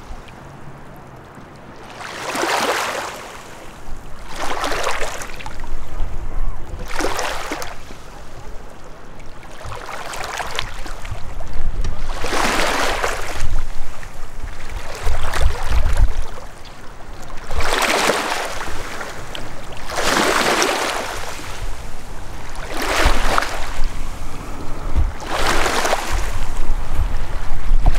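Small lake waves lapping and washing onto the shore, one wash every two to three seconds, with wind rumbling on the microphone at times.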